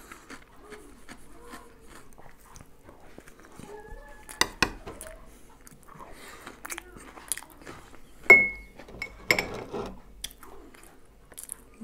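Close-up eating sounds: chewing and mouth clicks as mashed potato and sausage are eaten from a metal spoon. A metal spoon clinks now and then against a plate or glass jar, the loudest a sharp clink with a brief ring about eight seconds in.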